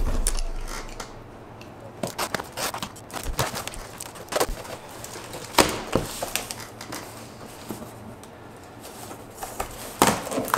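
Cardboard parcel box being handled and opened: a dull thump at the start, then scattered scraping, crackling and knocks of the cardboard as the taped lid is pulled open.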